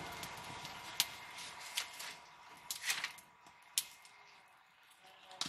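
Dry firewood sticks being snapped and handled by hand: several sharp cracks about a second apart over a faint steady hiss that dies down after about two seconds.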